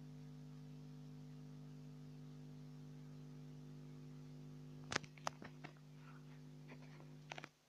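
Steady low electrical hum. A cluster of sharp clicks comes about five seconds in and a few more near the end, and then the hum cuts off suddenly.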